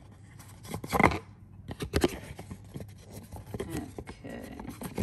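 Cardboard box insert rustling and clicking as plastic crochet hooks are pulled out of their slots, with a louder knock about a second in and a few smaller ones after.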